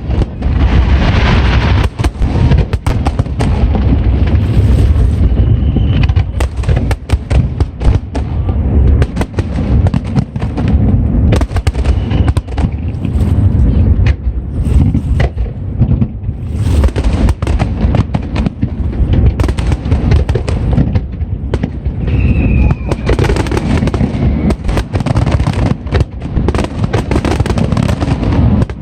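Aerial fireworks display: a dense, continuous barrage of shell bursts, with deep booms and crackling reports following close on one another.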